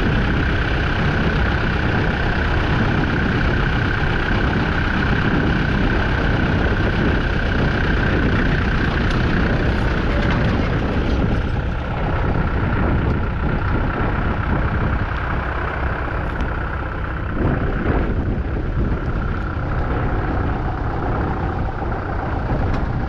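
1958 Massey Ferguson 65 MK1 tractor's 3.3-litre four-cylinder diesel engine running steadily, a little fainter in the second half.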